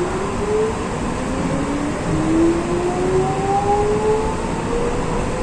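Electric commuter train accelerating from a stop, heard from the driver's cab: the traction motor whine rises steadily in pitch over the rumble of the wheels on the rails.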